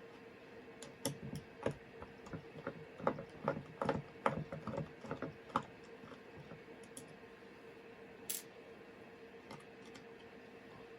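A quick, irregular run of small clicks and taps as hand tools work on a laptop hard drive's actuator magnet to pry it off, then a short hiss near the end. A faint steady hum runs underneath.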